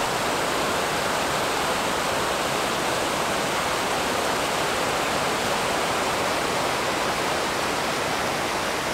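Mountain creek rushing over boulders in small cascades: a steady, loud rush of tumbling water.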